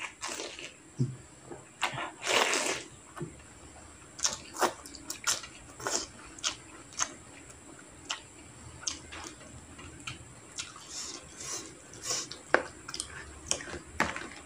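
A person slurping and chewing instant noodles in broth: a longer wet slurp about two seconds in, then many short, wet clicking chewing sounds.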